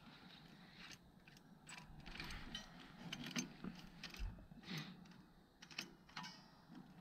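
Faint metallic clicks and rattles of hand tools being worked on engine parts, with a short run of rapid ticks like a ratchet about six seconds in.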